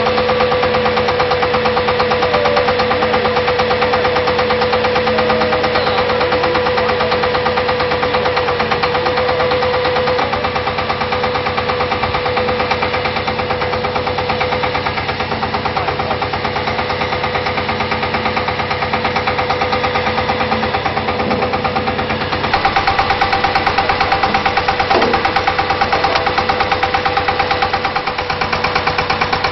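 Water-well drilling rig running: a steady, loud mechanical din with a fast, even pulsing. It steps up louder and brighter about two-thirds of the way through.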